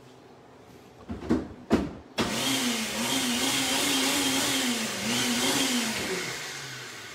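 Ninja blender: a few clicks and knocks as the jar is set, then the motor starts suddenly. It runs about four seconds blending a sauce, its pitch wavering with the load, then winds down and fades.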